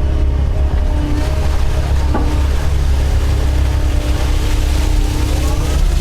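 Doosan DX140 excavator's diesel engine running steadily, with a sharp knock about two seconds in and a rising hydraulic whine near the end.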